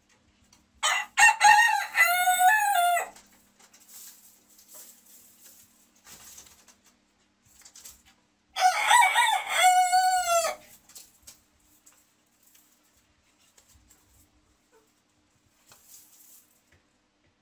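Silver-spangled Hamburg bantam rooster crowing twice, about seven seconds apart. Each crow is a broken opening followed by one long note that arches and falls away at the end.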